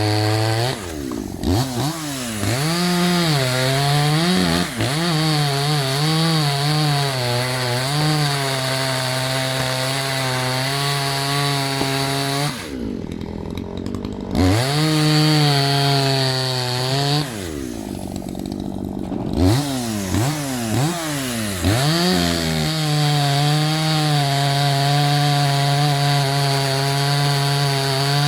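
Maruyama MCV5100S two-stroke chainsaw running at full throttle while cutting wood, its engine pitch dipping and recovering as the chain loads in the cut. About halfway through, the throttle twice drops back to idle for a couple of seconds before the saw revs up again.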